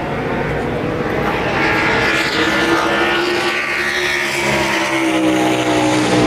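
NASCAR stock cars' V8 engines running on pit road, getting steadily louder as the cars come in for their pit stops.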